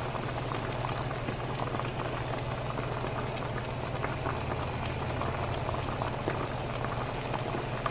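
Spicy goat meat stewing in a frying pan in its blended pepper-and-onion sauce, the liquid bubbling and popping steadily, with a steady low hum underneath.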